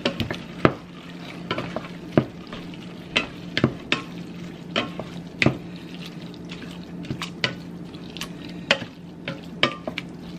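Wooden spoon stirring taco meat and salsa in a stainless steel saucepan: irregular knocks and scrapes of the spoon against the pot, about one or two a second, over a steady sizzle from the cooking meat.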